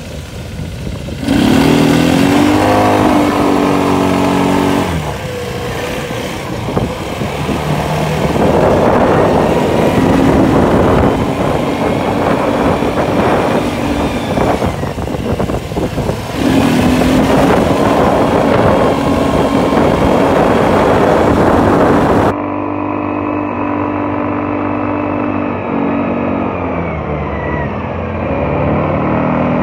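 Quad bike engines running and revving as they are ridden over sand, the engine note rising and falling again and again, over a steady rush of wind noise. About three-quarters of the way through, the sound abruptly turns duller.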